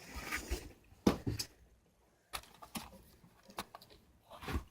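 Candy wrapper being handled: a few scattered sharp clicks and faint rustles with pauses between them.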